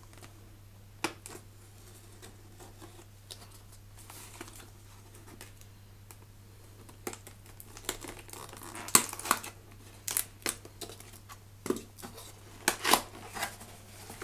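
A cardboard box being cut open with a Stanley utility knife, with packaging crinkling and tearing. Faint scraping at first, then a busy run of sharp crackles and snaps in the second half.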